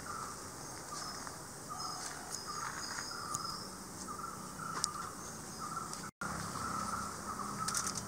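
Insects chirping in a steady chorus of short repeated calls, about one or two a second, with a few faint clicks. The sound cuts out for a moment a little after six seconds.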